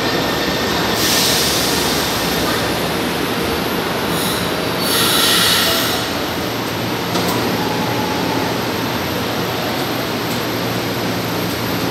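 São Paulo Metro train running into an underground station and slowing to a stop, a steady rumble of wheels on rail with two bursts of high hiss and thin wheel and brake squeals. A single sharp clunk comes about seven seconds in.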